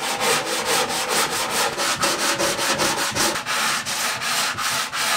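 A hand-held flat sanding block is rubbed quickly back and forth over oak strips on an OSB cabinet front, about five strokes a second, sanding the strips level.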